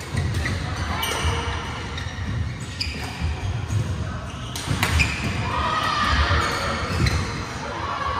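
Badminton rallies in a large, echoing sports hall: sharp racket strikes on the shuttlecock at irregular moments, among players' footfalls and shoe squeaks on the court floor.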